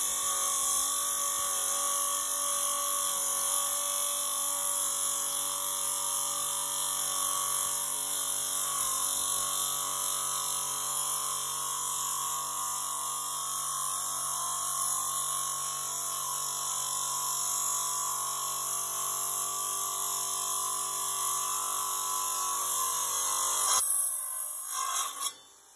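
Bull Boar wet tile saw running steadily while its diamond blade cuts slowly through a block of travertine: a smooth, even motor hum with hiss from the blade. The sound cuts off suddenly near the end.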